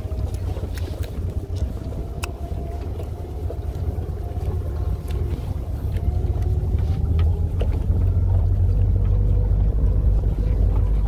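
A steady low rumble with a faint steady hum over it, getting louder about eight seconds in, with a few faint clicks.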